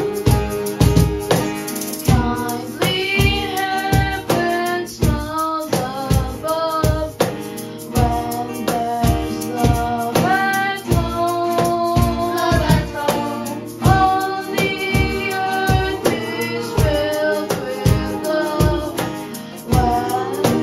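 A boy singing a song into a microphone, with guitar accompaniment and a steady beat.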